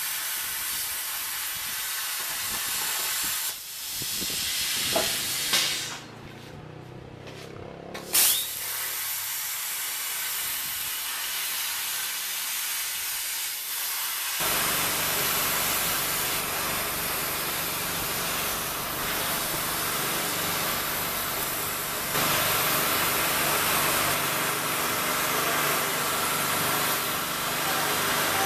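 CNC plasma torch cutting steel plate: a steady hiss that breaks off for a couple of seconds a few seconds in, with sharp pops around the break. From about halfway a low steady hum runs under the hiss.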